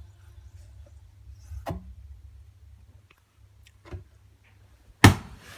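Water bottle giving off sharp clicks: a couple of light clicks, then a single loud pop near the end. A low hum underneath stops about three seconds in.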